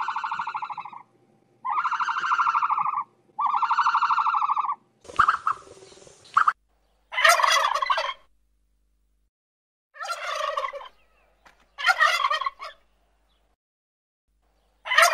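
Three long, buzzy, evenly pitched calls in the first five seconds, then tom turkeys gobbling in four rapid, ragged bursts, the loudest near the end.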